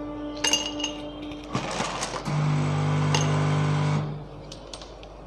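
Ice cubes dropped into a glass mug, clinking against the glass a few times with a short ring. In the middle a steady low hum, the loudest sound, runs for under two seconds and cuts off suddenly.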